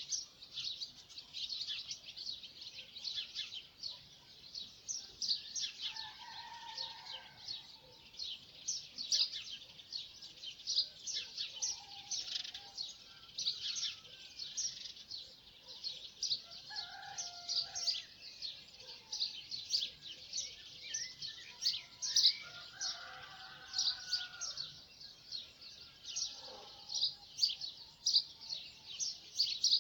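Dawn chorus of many small songbirds chirping rapidly and without a break. Every few seconds a lower, longer call from another bird stands out beneath the chirping.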